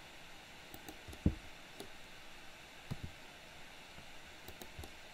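A few soft knocks and clicks over a faint steady hiss, the loudest knock about a second in: a computer keyboard and mouse being worked at the desk.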